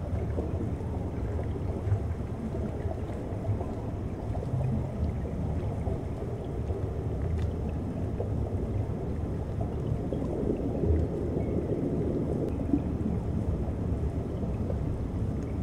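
Underwater ocean ambience: a steady low rumble and wash of moving seawater, with a few faint clicks.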